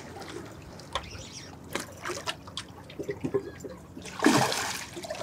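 Shallow water lapping and trickling against shoreline rocks, with a loud splash about four seconds in as a hooked black drum thrashes at the surface.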